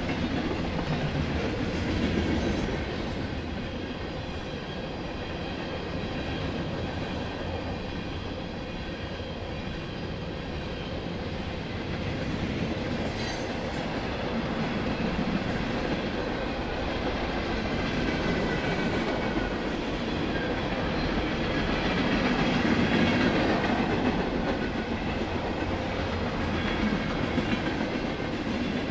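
Freight cars of a long Norfolk Southern mixed freight train rolling past, with a steady rumble of steel wheels on rail that swells and fades as cars go by and a clickety-clack over rail joints. Faint high wheel squeal rings at times, and there is a single sharp clank about 13 seconds in.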